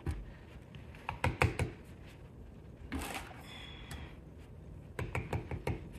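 Trowel clicking and scraping against the rim of a plastic bucket of mortar: a few sharp taps about a second in, a short scrape about three seconds in, and a quick run of clicks near the end.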